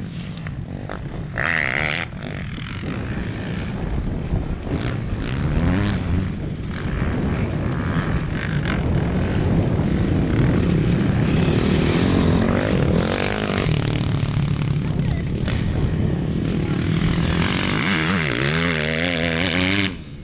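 Motocross bike engines revving, their pitch rising and falling again and again as the riders work the throttle, loudest in the middle of the stretch.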